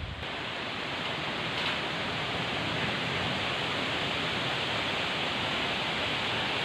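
Strong wind blowing through trees and foliage: a steady rushing noise that grows slightly louder.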